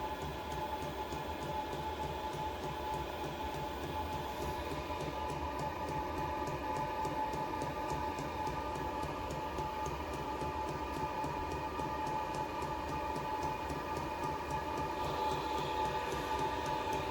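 All-in-one diesel heater burning a waste-oil and diesel mix, running steadily: a constant blower whine over a low combustion rumble that pulses evenly a few times a second.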